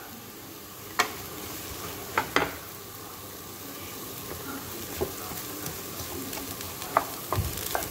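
Freshly added sliced red onions sizzling in melted smen (clarified butter) in a frying pan, stirred with a wooden spoon that knocks sharply against the pan several times.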